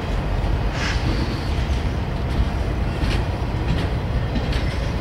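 Freight train's boxcars rolling past: a steady low rumble of steel wheels on rail, with a few brief sharp clacks from the wheels, about one, three and four and a half seconds in.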